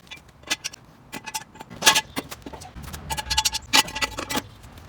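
Metal objects clinking and rattling as they are handled, in quick irregular clatters with short ringing tones after some of the knocks.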